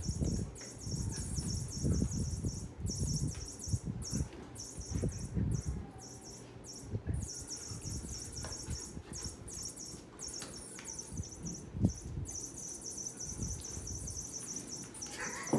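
Insects chirping in a dense, rapidly pulsing high trill, broken by short pauses, over irregular low thumps and rustles, with one sharper thump about twelve seconds in.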